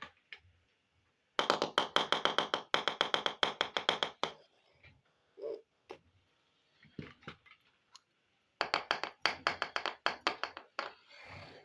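Two runs of rapid small clicks, about eight a second, each lasting a couple of seconds, with a few single taps between, from handling small plastic toy kitchen pieces.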